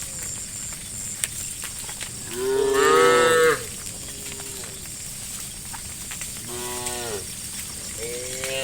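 Cows mooing: one loud, drawn-out moo about two and a half seconds in, a quieter, shorter moo a few seconds later, and another starting near the end.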